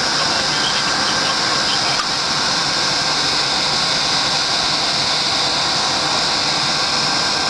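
A steady, unbroken mechanical drone with a hissing high band, level throughout, like engine noise.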